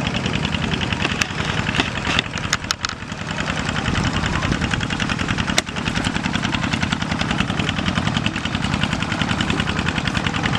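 A small engine running steadily with a rapid, even pulse, broken by a few sharp clicks between one and three seconds in and one more a little past halfway.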